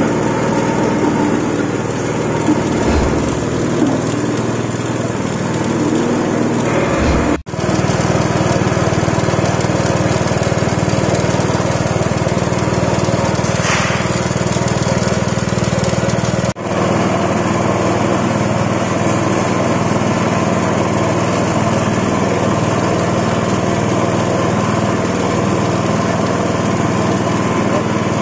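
Motor-driven ginger and turmeric pressing machine running steadily with a constant mechanical drone; the sound breaks off for an instant twice.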